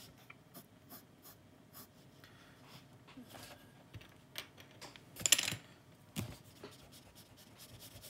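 Pencil sketching on sketchbook paper in short, faint strokes; about five seconds in comes a louder burst of rubbing from an eraser on the paper.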